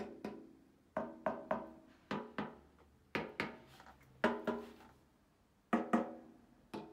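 A small pointed-tip body-repair hammer tapping on a Honda CBR 919RR motorcycle fuel tank: about fifteen quick taps in groups of two or three, each with a brief ring from the tank.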